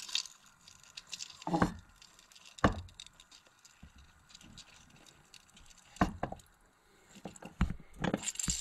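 Several sharp knocks and bumps at irregular intervals, with quieter wet, splashy handling noises between them.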